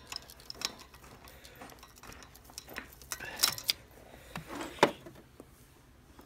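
Scattered small metallic clicks and clinks of pliers and wire spade terminals being pulled off a pump motor's start capacitor, with the capacitor handled, two sharper clicks past the middle.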